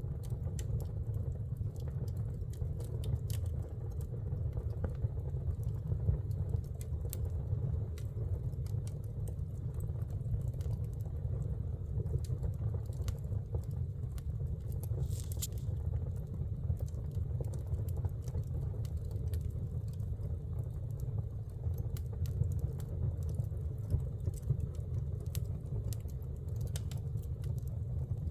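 Wood fire in a fireplace crackling: sharp, irregular pops and snaps over a steady low rumble of the flames, with a brief hiss about halfway through.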